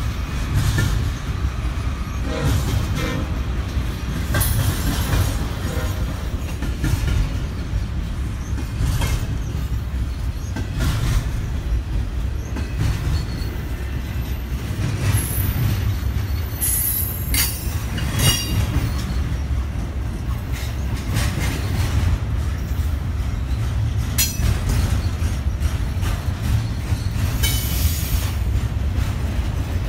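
Double-stack intermodal freight train's well cars rolling past with a steady low rumble of wheels on rail. Short high-pitched wheel squeals and clicks cut in now and then, most around the middle and near the end.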